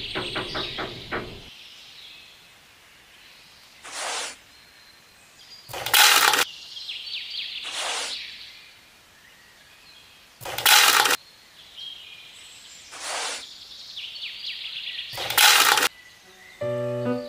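Dried soybeans scooped from a pile and poured into a small model seed hopper: shorter rustles of the scoop in the pile, and three louder rattling pours of about half a second each. A few light clicks at the start as the hopper lid is opened, with faint bird chirps in the background.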